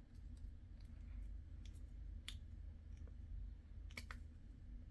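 Small plastic model-kit wheel parts being handled and pressed together, giving scattered faint clicks and taps, two close together about four seconds in, over a low steady hum.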